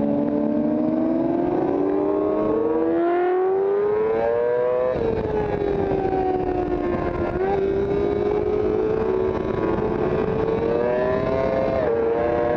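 Sport bike engine heard from an onboard camera, accelerating hard around the track: its pitch climbs for about five seconds, dips suddenly, then climbs again with another sudden dip near the end. Steady wind rush on the bike.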